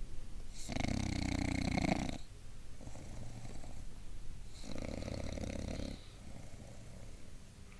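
Bulldog snoring in its sleep: two long snores, each over a second, about four seconds apart, with quieter breathing between them.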